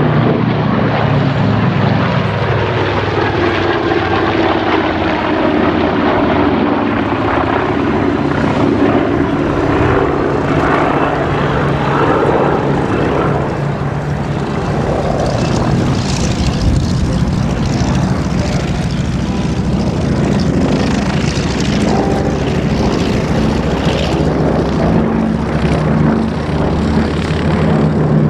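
Propeller-driven WWII piston-engined fighters flying past, a continuous engine drone whose pitch falls and rises several times as aircraft pass and come round again.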